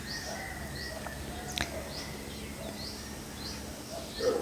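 Morning birdsong: one bird repeats a short high chirp about twice a second, with fainter, lower bird calls beneath it.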